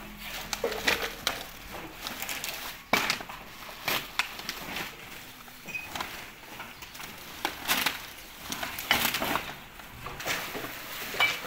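Plastic garbage bags rustling and crackling as hands rummage through them to sort out bottles, in a series of irregular crackles.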